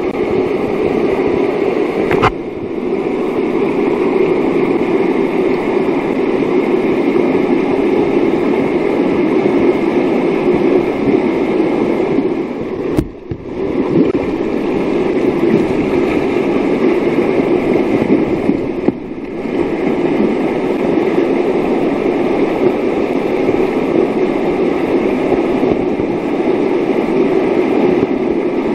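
Steady rush of whitewater rapids heard from water level among the kayaks. A sharp click sounds about two seconds in, and another about thirteen seconds in, where the rush briefly drops away.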